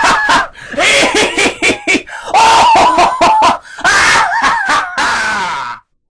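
Loud, very high-pitched human laughter in repeated bursts, stopping abruptly near the end.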